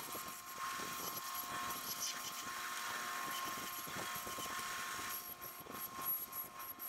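1928 American Tool 36-inch bandsaw running with a steady hum while its blade cuts through an ash spoon blank, the saw carrying the cut without bogging down. The cut grows more uneven with scattered clicks near the end.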